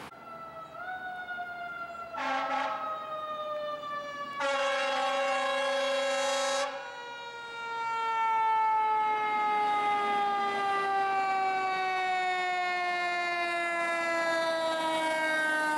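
Fire truck siren winding down in one long, slowly falling tone. A short horn blast sounds about two seconds in and a longer one of about two seconds follows at four and a half seconds.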